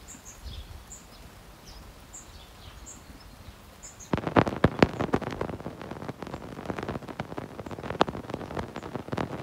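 Faint high bird chirps over a steady outdoor hiss, then from about four seconds in a dense run of close, loud clicks and crunching knocks.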